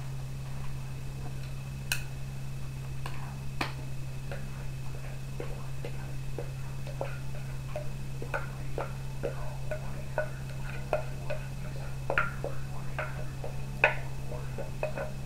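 Thick corn casserole batter being scooped from a mixing bowl into a cast iron Dutch oven: irregular small clicks and knocks of the utensil against bowl and pot, coming more often after about seven seconds. A steady low hum runs underneath.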